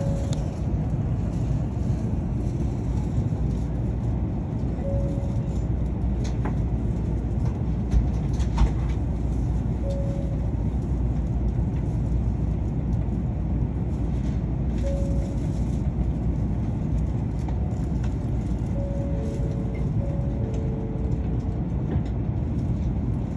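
Steady low rumble of the car's machinery heard inside a Tokaido Shinkansen passenger car at the platform, with a short faint beep about every five seconds and two soft knocks about eight seconds in.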